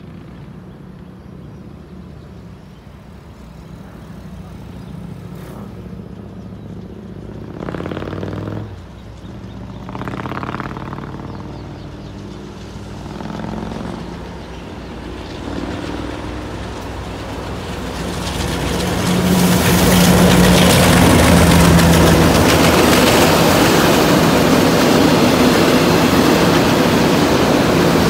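KTMB Class 29 diesel-electric locomotive approaching with its engine running, growing gradually louder. Two brief swells of sound come about eight and ten seconds in. It passes close about nineteen seconds in, with a strong engine note, and is followed by the steady rumble of loaded container wagons running on the rails.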